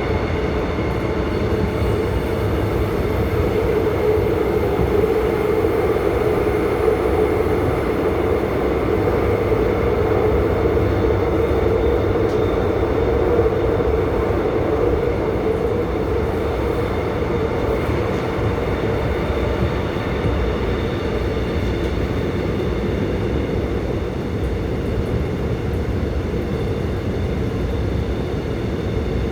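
Seoul Subway Line 5 train running between stations, heard from inside the carriage. The wheels and running gear keep up a steady rumble, and a droning tone swells through roughly the first half, then eases.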